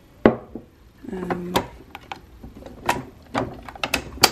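Ceramic mugs knocking and clinking on a kitchen counter, a string of sharp clicks, then the plastic lid of a Keurig coffee maker snapping with a loud click near the end.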